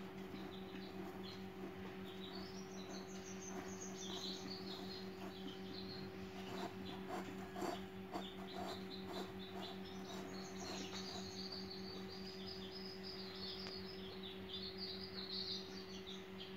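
Small birds chirping with short high gliding calls over a steady low hum. Soft clicks and rustles of chicken eggs being turned by hand in rice-husk bedding come mostly between about six and ten seconds in.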